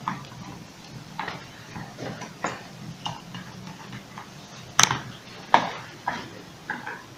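A screwdriver working the screws of an electric hair clipper's housing: scattered small clicks and ticks of metal on screw heads and the clipper body, with two louder knocks a little after the middle.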